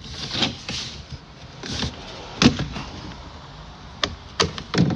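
Plastic retaining clips of a lift gate's interior trim panel popping loose as the panel is pulled down: a series of sharp snaps and knocks, the loudest about two and a half seconds in, with a cluster of three near the end.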